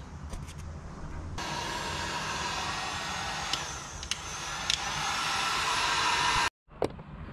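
Electric heat gun switching on about a second in and blowing steadily while shrinking heat-shrink tubing over a crimped wire connector, with a few light clicks; it cuts off abruptly near the end.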